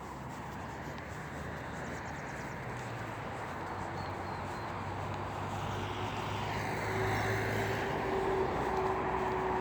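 Outdoor field recording with the steady hum of a vehicle engine that grows gradually louder as it approaches.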